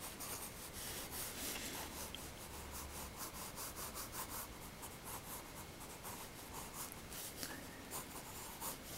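Graphite pencil scratching faintly on sketchbook paper in many quick, short strokes, shading a drawing.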